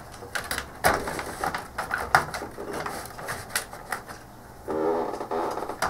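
Irregular clicks and knocks of a circuit board, wiring and plastic parts being handled and shifted inside an open CRT monitor chassis, the sharpest knocks about one and two seconds in.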